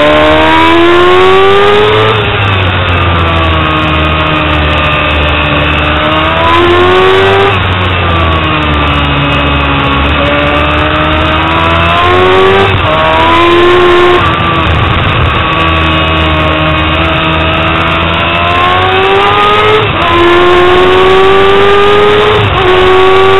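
Yamaha R6 inline-four sport-bike engine heard on board at high revs on track, its pitch climbing under acceleration and falling back several times as the throttle closes and gears change.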